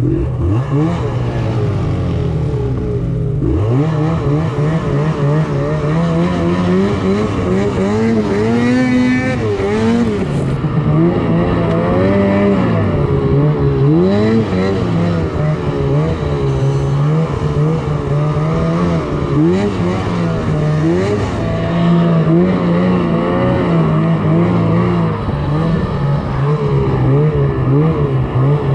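Snowmobile engine running hard while riding through powder, its pitch rising and falling continually as the throttle is worked.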